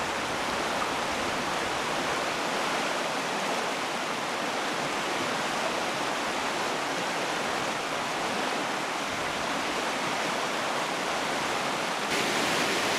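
Steady rush of a stream's running water, a little brighter near the end.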